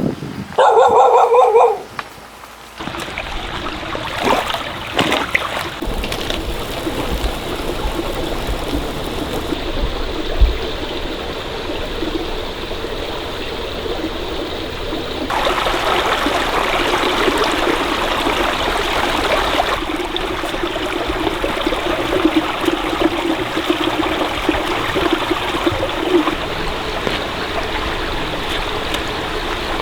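Stream water flowing and trickling steadily. Near the start there is a loud pitched call lasting about a second.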